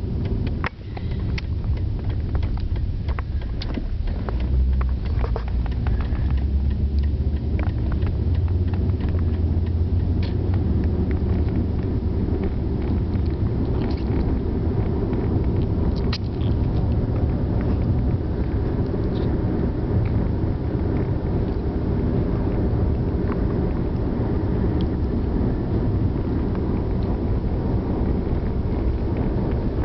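Steady low rumble of road and engine noise inside a moving car's cabin, with a few faint clicks in the first several seconds.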